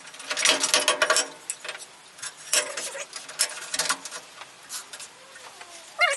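Irregular clicks, knocks and rustling of workshop handling, busiest in the first second or so and again a few seconds in, with no saw motor running.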